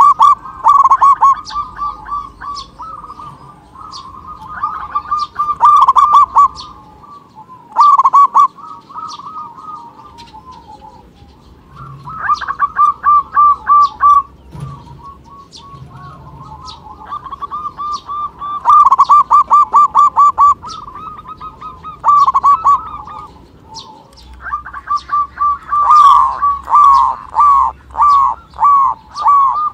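Zebra dove (perkutut) cooing song: runs of rapid, staccato cooing notes, several bouts of one to five seconds each with short pauses between.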